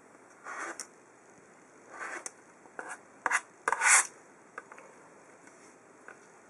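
Short rasping rubs of a rotary cutter slicing fabric along an acrylic ruler and of the ruler sliding over a plastic cutting mat: five strokes, the loudest about four seconds in as the ruler is swept across, then two faint clicks.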